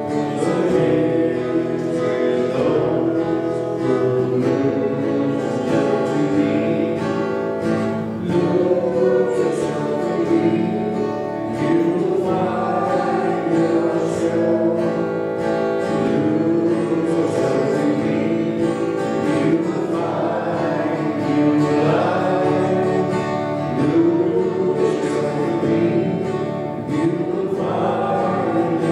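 A hymn sung by two men's voices to an acoustic guitar.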